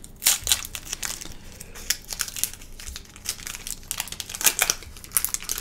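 Foil booster pack wrapper crinkling and crackling in irregular sharp bursts as it is worked open by hand.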